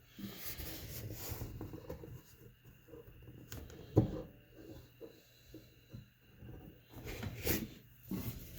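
Garbage disposal making an uneven rattling and knocking noise over a faint steady low hum, with one sharp knock about four seconds in.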